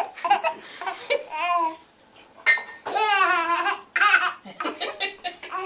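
A baby laughing in several bursts during a game of peek-a-boo, with women laughing along.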